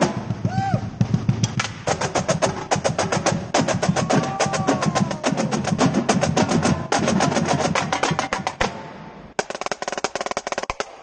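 Marching snare drumline playing a fast cadence together, dense rapid stick strokes and rolls on the snares. The playing thins for a moment near the start and drops in level briefly near the end before picking up again.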